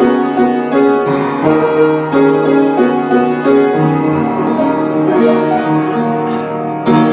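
Piano played with both hands in full chords, held notes changing every second or so.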